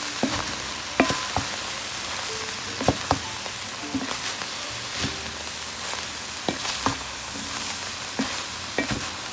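Cauliflower rice frying and sizzling in a pot while a spatula stirs it, with frequent short knocks and scrapes of the spatula against the pot.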